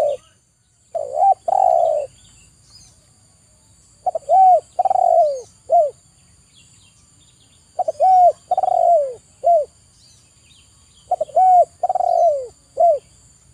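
Spotted dove cooing: four phrases about three and a half seconds apart, each a couple of short coos, a longer drawn-out coo and a short closing note.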